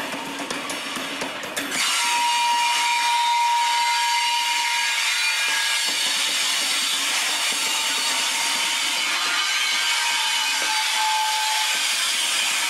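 Loaded HXA coal hopper wagons rolling past, their wheels squealing against the rails in several high, steady tones. A few clicks in the first two seconds, then about two seconds in the squeal grows louder and holds.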